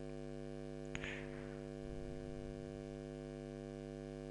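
Steady electrical mains hum with a faint click about a second in.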